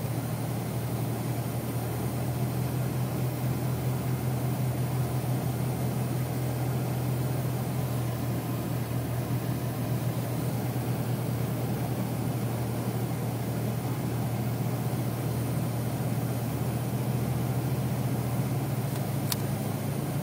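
Steady cabin drone of a Dodge Dakota pickup driving slowly on a snow-covered highway: a low engine hum mixed with tyre and road noise. A single short click sounds near the end.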